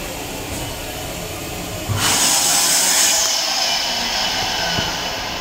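Electric hand dryer switching on with a sudden loud rush of air about two seconds in, then easing off over the next few seconds, over the steady running noise of the railcar.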